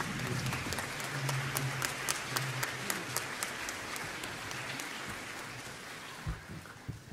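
Audience applauding, many hands clapping, dying away over the last couple of seconds, with a single thump near the end.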